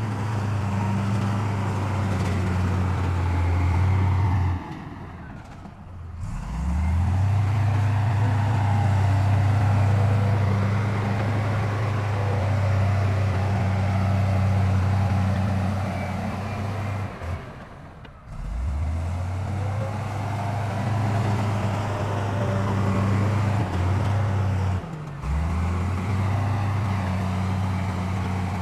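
Heavy diesel engines of earthmoving machinery running steadily with a deep, even drone. Three times the sound dips briefly, and a low engine note rises back in.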